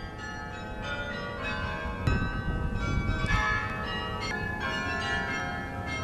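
Church bells pealing: several bells of different pitches struck one after another, roughly every half second, each ringing on under the next. Wind rumbles on the microphone underneath.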